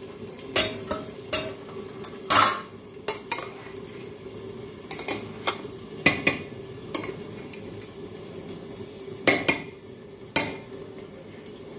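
Steel ladle stirring and scraping through freshly strained cooked rice in a stainless-steel bowl, with irregular sharp clinks of metal on metal, the loudest a little over two seconds in and again about nine seconds in. A steady low hum runs underneath.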